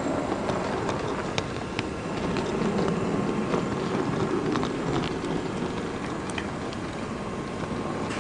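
16-gauge (1:80 HO-scale) model train running along the track, a steady motor and wheel hum with scattered irregular clicks, picked up by a small camera riding on the train.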